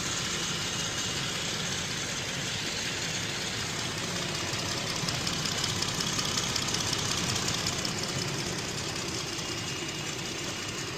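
A 2018 Jeep Grand Cherokee's 3.6-litre V6 idling steadily, with a new fuel injector, spark plug and coil fitted on the cylinder that had been misfiring; it sounds good now.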